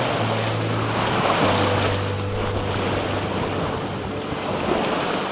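Sea water rushing and splashing along the hull of a sailboat moving under sail on open ocean, with wind buffeting the microphone. Soft, held background-music tones sit underneath.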